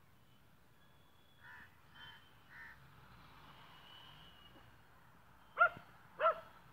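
Animal calls: three faint short calls, then two loud short calls about two-thirds of a second apart near the end.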